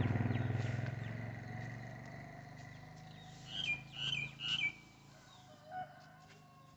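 Three short, high calls falling in pitch, in quick succession about halfway through, then one lower call near the end. Under them is a low rumble that fades out over the first two seconds.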